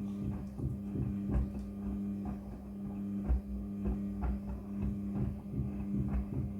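Front-loading washing machine running a wash cycle: a steady motor hum with irregular soft knocks, one or two a second, as the load tumbles in the drum.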